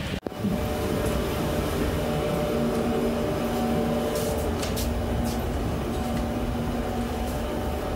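Steady mechanical hum of airport machinery heard inside an enclosed passenger jet bridge, a constant whirring noise with several steady tones, with a few light clicks about halfway through.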